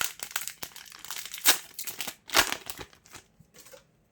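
Foil wrapper of a Yu-Gi-Oh! booster pack crinkling and tearing as it is opened by hand: a run of rustles with two louder crackles, about a second and a half and two and a half seconds in.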